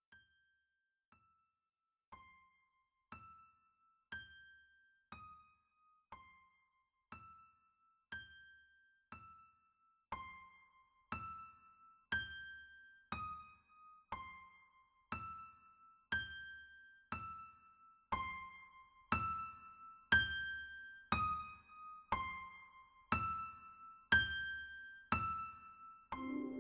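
Electric piano playing a slow repeating figure of single notes, about one a second, each ringing and dying away. It starts faint and swells steadily louder, as in a fade-in.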